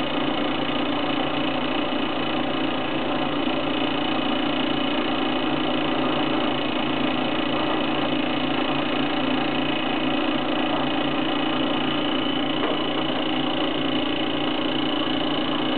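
Stirling engine generator, heated by a cassette-gas burner, running at a steady speed with an even mechanical hum and no change in pace.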